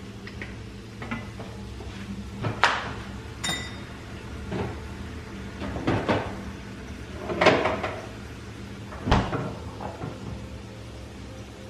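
Kitchen clatter of dishes and cupboards being handled: a series of separate knocks and bumps, the loudest about seven and a half seconds in, one a short ringing clink about three and a half seconds in, over a steady low hum.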